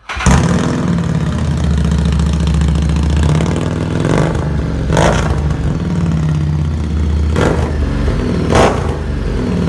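Harley-Davidson Street 750's V-twin running loud through an aftermarket Vance & Hines exhaust, idling steadily with four quick throttle blips, about four, five, seven and a half and eight and a half seconds in.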